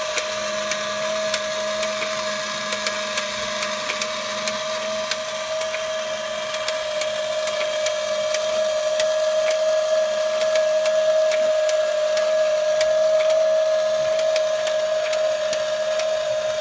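Transparent plastic model engine kit running on its small electric motor: a steady whine with irregular light plastic clicks and ticks from the turning mechanism.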